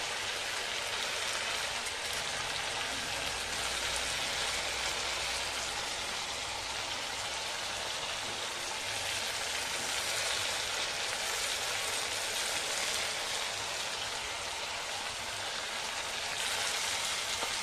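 Chicken frying in hot oil in an iron karahi, a steady sizzle. The oil has separated from the masala.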